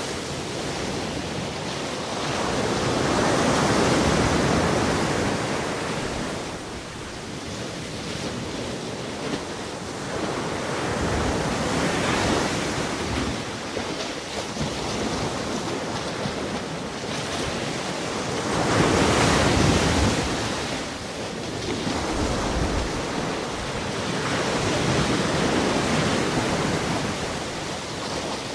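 Ocean surf breaking on the shore, a steady rush that swells and fades in surges every several seconds.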